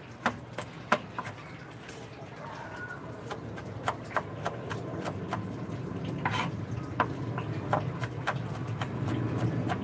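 Knife chopping on a plastic cutting board: irregular sharp taps of the blade, a few a second. A low steady hum underneath grows louder in the second half.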